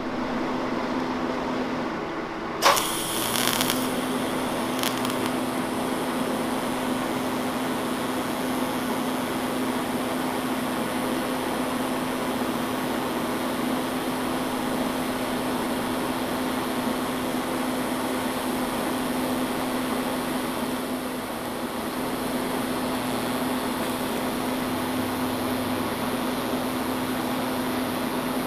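TIG welding arc striking with a sharp crackle about three seconds in, then running as a steady hiss over the welder's constant hum while silicon bronze filler rod is fed in to braze a crack in cast iron.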